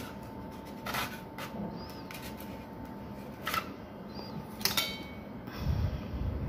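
Scattered soft clicks and taps of hands working a dough figure on a polystyrene board. About three-quarters of the way through comes a sharper click with a brief metallic ring as a steel ruler is picked up, and a low rumble follows near the end.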